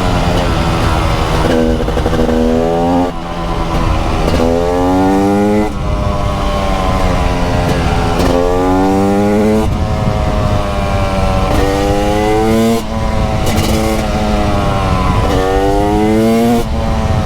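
TM SMR 300 single-cylinder two-stroke engine under hard acceleration, its pitch climbing steeply and then dropping sharply at each gear change, several times over.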